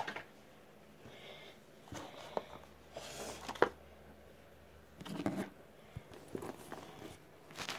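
Scattered rustling and light knocks of objects being handled, with one sharp click about three and a half seconds in. A burst of rustling and knocking about five seconds in as the filming phone is picked up and moved.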